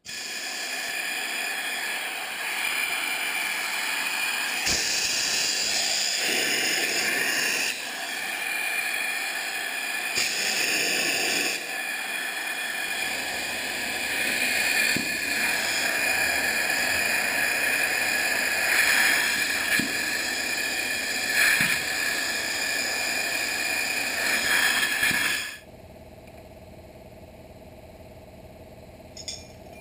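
Compressed air rushing through a hydraulic chainsaw's motor: a loud, steady hiss with a steady whine over it, as shop air blows out the motor. The air cuts off about 25 seconds in, and a much quieter steady hum is left.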